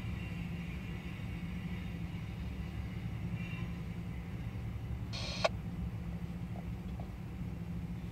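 Covered hopper cars of a CSX freight train rolling past with a steady low rumble as the last cars go by. A brief high squeal with a click sounds about five seconds in.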